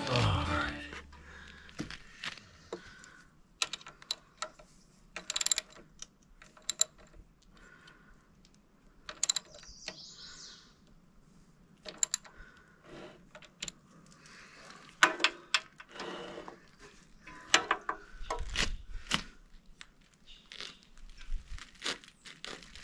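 Scattered metal clicks and clinks of a small socket ratchet and bolts as an engine is bolted down to its new steel motor mount plate. The clicks come irregularly, with short quiet gaps between them.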